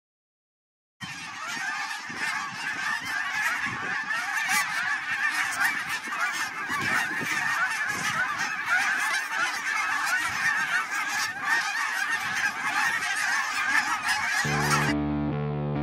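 A large flock of Canada geese honking in a dense, continuous chorus, starting abruptly about a second in. Near the end the honking cuts off and electric guitar music comes in.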